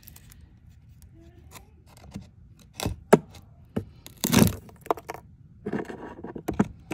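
Rotted, termite-eaten wood in a door frame being pried and broken out with a screwdriver and the claw of a hammer: a run of sharp cracks and scrapes, with a longer crunching tear about four seconds in and another near six seconds.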